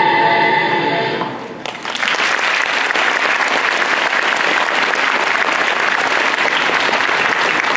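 Dance music ends on a held chord that fades out about a second in, then an audience breaks into steady applause.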